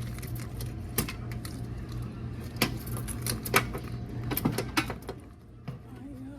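Quarters clinking and rattling in a vending machine's metal coin box as it is handled, a run of sharp irregular clinks, over a steady low hum.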